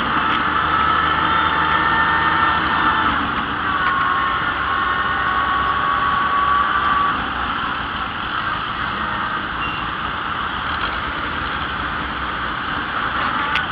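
Vintage farm tractor engine running steadily at low speed while the tractor drives slowly, heard from the driver's seat, with a thin high whine over it that fades about halfway through.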